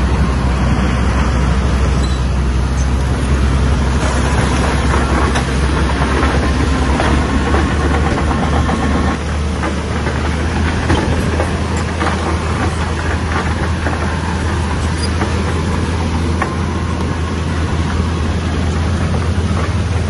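Shantui bulldozer's diesel engine running under load, a steady deep drone, with scattered clanks from the machine working.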